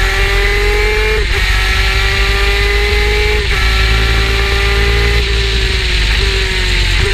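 Superkart's two-stroke engine running hard at high revs. The pitch breaks sharply four times as the gears are changed.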